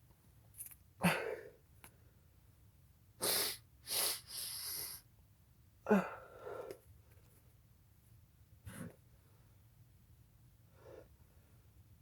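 A person sneezing: two sharp sneezes, about a second in and about six seconds in, with noisy breaths between and after them.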